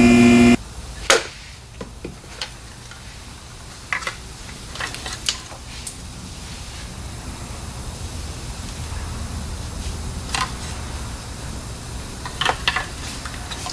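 Scattered light clicks and clinks of hand tools and parts being handled, over a low steady hum. A louder, steadily pitched hum cuts off suddenly about half a second in.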